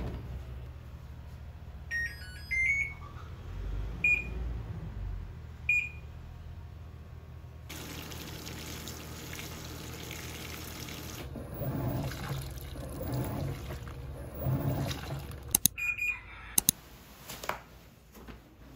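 Panasonic top-load washing machine: a few short electronic beeps from its control panel, then water gushing into the drum onto the bedding, rising to irregular louder splashes. A few sharp clicks near the end.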